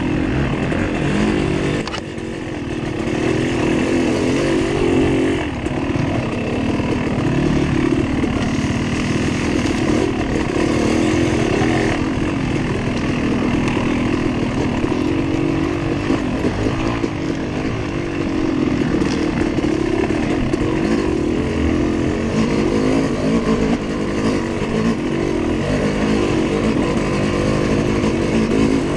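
Off-road dirt bike engine running hard on a trail ride, its pitch rising and falling constantly with the throttle, with a brief drop about two seconds in.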